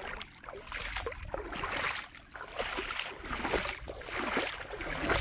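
Shallow river water sloshing and lapping, in uneven surges about every half second to a second, over a low steady rumble.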